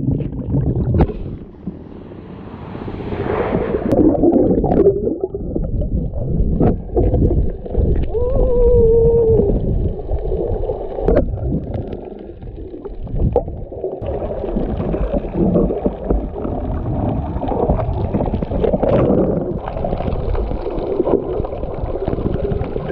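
Muffled underwater sound through a submerged camera: water rushing and gurgling around the camera during a dive. A few sharp knocks stand out, and a brief wavering tone comes about eight seconds in.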